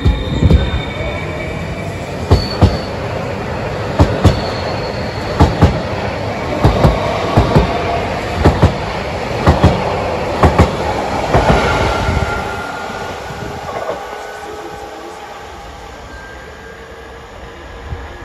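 Electric multiple unit pulling out of a station along the platform: rumbling with faint wheel squeal, and wheels knocking in quick pairs over rail joints, the pairs coming closer together as it gathers speed. It fades as it draws away near the end.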